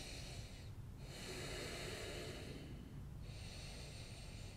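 Slow, deep breathing through the nose, heard as long breaths of about two seconds each with short pauses between, from a person holding a yoga pose.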